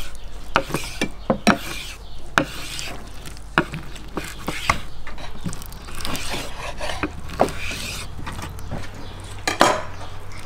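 Kitchen knife slicing lamb liver on a wooden cutting board, the blade knocking against the wood in irregular taps, about one or two a second.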